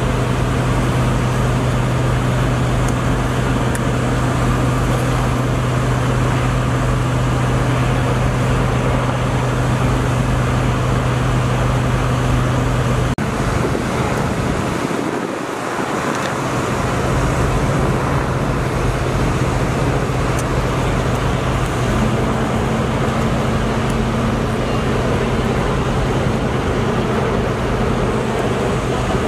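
Large truck engines idling: a loud, steady low drone with a constant hum, briefly dipping about halfway through.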